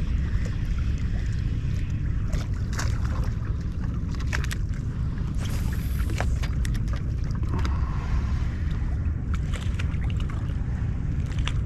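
Wind rumbling on the microphone over open water, with small splashes and ticks of water lapping against the kayak hull.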